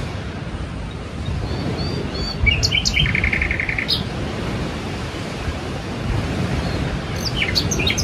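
Sea surf washing steadily, with small birds chirping over it: a few short high chirps, a quick trill about three seconds in, and a cluster of chirps near the end.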